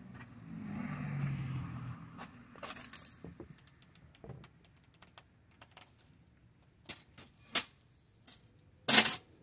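A low rustle, then scattered sharp clicks and light rattles: about three in the first half and several more later, the loudest just before the end.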